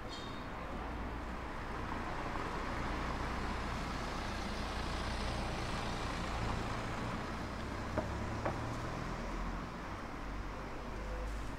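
A motor vehicle passing along the street: steady road noise with a low rumble that swells over the first couple of seconds and eases off near the end. Two short clicks come about eight seconds in.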